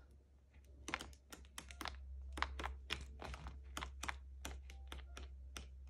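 Hands handling a paper pad of scrapbook paper: light, irregular clicks and taps, about four a second, starting about a second in.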